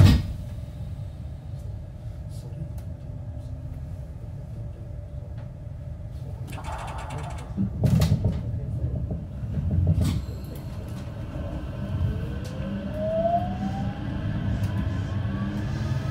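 Inside a 225-5100 series electric train's motor car: a low steady running rumble, a few thumps and a short hiss around the middle, then the Toshiba IGBT VVVF inverter's whine rising steadily in pitch in the second half as the train accelerates.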